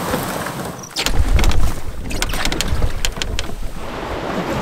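Steady rush of river water, then from about a second in the louder churn of whitewater rapids around a paddled canoe, with wind buffeting the microphone. A run of sharp knocks and splashes comes in the first half of the rapids.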